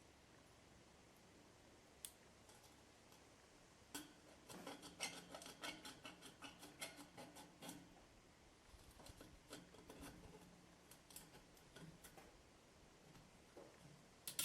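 Snips cutting the chimney liner pipe to length: a faint run of quick, sharp snipping clicks starting about four seconds in, a short pause, then more snips.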